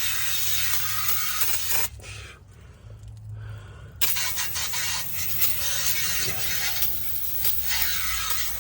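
Aerosol brake cleaner spraying onto the old brake caliper in a long hiss. It stops for about two seconds a couple of seconds in, then sprays again, rougher and spattering.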